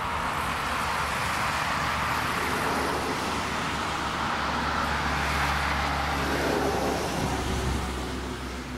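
Road traffic noise: a steady rush with a low engine hum, swelling a little a few seconds before the end and easing off near the end.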